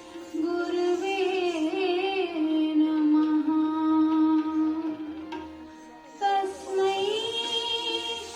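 Indian classical-style song accompanying a Kathak dance: a voice sings long, wavering held notes over instrumental accompaniment. The line softens a little past halfway and comes back strongly about six seconds in.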